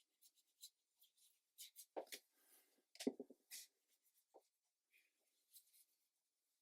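Brush strokes on heavy cotton watercolour paper: a series of short, faint scratchy strokes, with two louder rubs or knocks about two and three seconds in.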